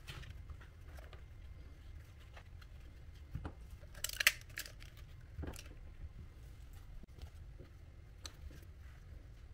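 Cardboard being worked by hand: scattered light taps and rustles, with a sharp crackle about four seconds in.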